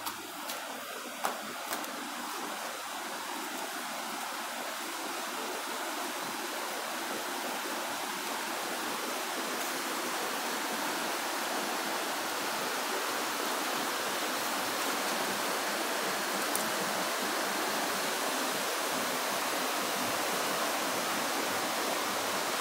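Rushing water of a rocky stream: a steady hiss that grows gradually louder. A few small knocks sound near the start.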